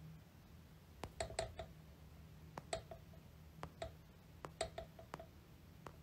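Irregular light clicks of a computer being worked, single clicks and quick runs of three or four, over a faint low hum.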